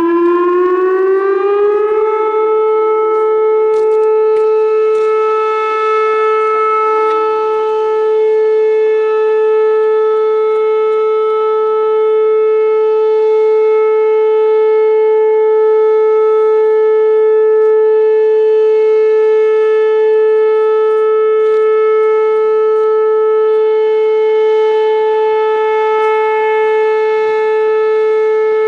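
Whelen WPS 2805 electronic outdoor warning siren sounding its steady alert signal at about 435 Hz: the pitch glides up over the first two seconds, then holds one unbroken tone with strong overtones.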